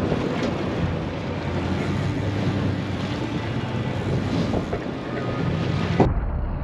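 Boat engine running steadily under heavy wind noise on the microphone, with the sea rushing past the hull.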